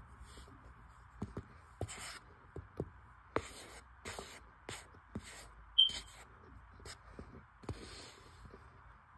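Metal spoon digging and pressing into a plate of cornstarch: about eight short, separate crunchy scrapes, with a sharp click about six seconds in.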